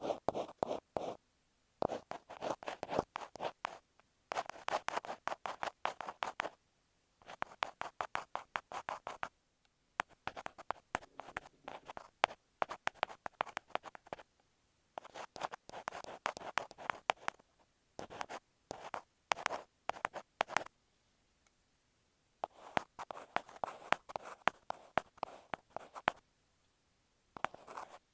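Ear pick scratching and scraping over masking tape on an earphone microphone, close up. It comes in runs of quick strokes a few seconds long, with short pauses between.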